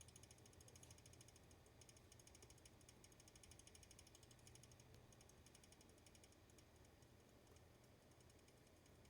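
Desktop PC making a faint, rapid rattle, like fast ticking, over a low steady hum.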